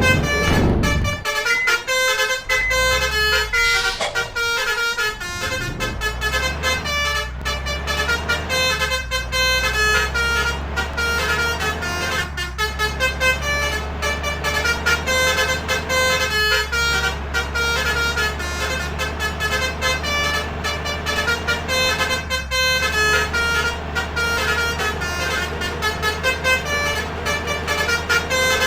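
Multi-tone 'telolet' bus horn of the Basuri trumpet type playing a quick tune of short notes, over the steady drone of a bus engine. A loud low rumble fades out about a second in.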